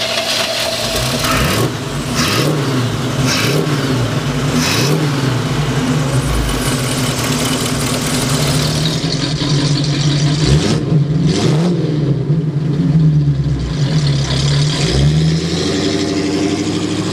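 Small-block 350 Chevy V8 with a four-barrel carburettor running, revved several times so its pitch rises and falls. Near the end the car drives off.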